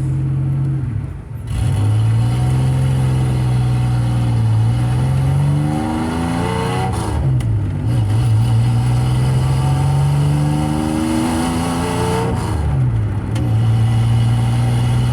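Car engine and exhaust under acceleration: the pitch climbs through a gear, drops at a shift about seven seconds in, climbs again, drops at another shift near twelve seconds, then holds steady.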